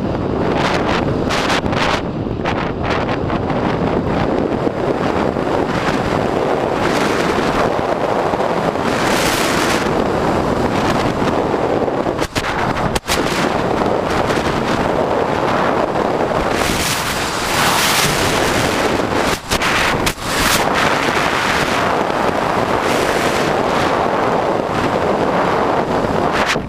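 Wind rushing over the microphone of a camera riding on an electric bike at speed: a loud, steady rush that dips briefly a few times.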